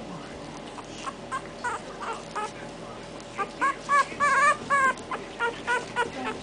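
Young bulldog puppies whimpering and squealing in a string of short, high cries. The cries come thickest and loudest in the middle, a few of them with a wavering pitch, then thin out.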